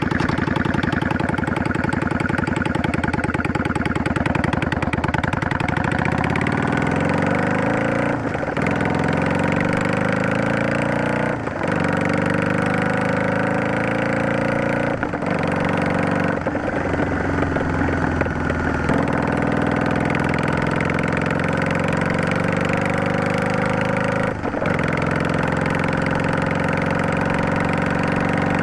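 Yamaha DragStar 400's air-cooled V-twin through a Garage T&F Vent Muffler Type2 with Luxury inner silencer, running steadily at first, then pulling and rising in pitch. There are several brief dips where gears change, each followed by the pitch climbing again.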